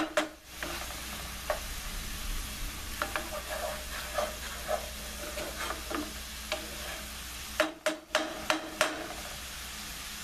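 Shallots and garlic sizzling in olive oil and white wine in a large nonstick skillet as the wine reduces, stirred and scraped with a wooden spatula. A quick run of sharp knocks comes near the end.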